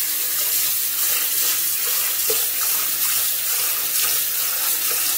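Kitchen tap running steadily into a sink full of soapy water, the stream pouring in without a break.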